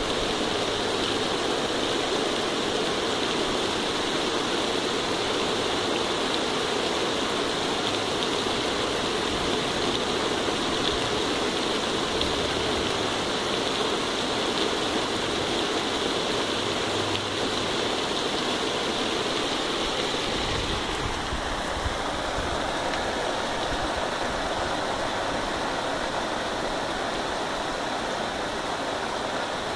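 Heavy rain pouring down steadily onto a grassy yard. About two-thirds of the way through, the rain sounds slightly different, a little less hissy.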